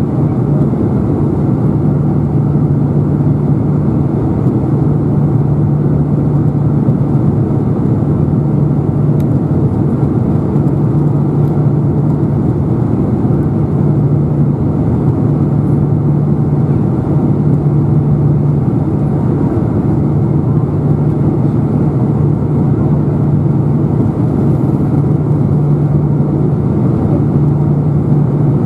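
Cabin noise of a Boeing 747-400 on its approach descent: the General Electric CF6-80C2 turbofans and airflow over the wing heard from a seat beside the wing. A steady, loud rush with a low hum that swells and fades every few seconds.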